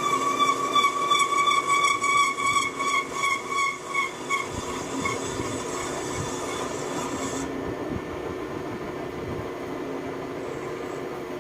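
Metalworking machine in a workshop giving a high-pitched ringing squeal that pulses about three to four times a second and fades out over the first five seconds, over a steady motor hum. The hiss cuts off suddenly about halfway through, leaving only the hum.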